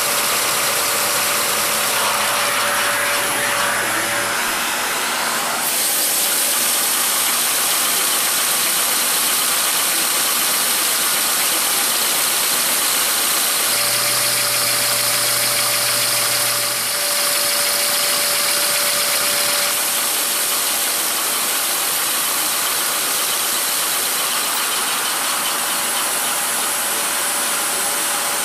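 Lego-brick model Walschaerts steam engine running on suction from a vacuum cleaner: the vacuum cleaner's steady rushing noise together with the running of the model's pistons and valve gear, with a faint steady whine that comes and goes.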